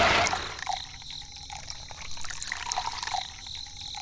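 A loud engine-like noise cuts off just after the start, leaving a quieter trickle of water with faint, irregular drips.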